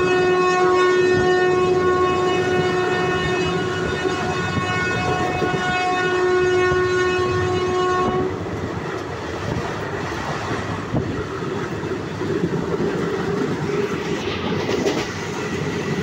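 Train horn sounding one long, steady note that cuts off suddenly about eight seconds in, over the rumble of the moving train. After it, only the train's running noise on the track, with a few faint clacks from the wheels.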